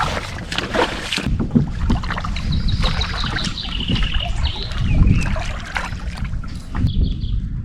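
Water splashing and sloshing around a kayak on the move. About two seconds in, a small songbird sings a quick run of repeated high notes that steps down in pitch, with another short phrase near the end.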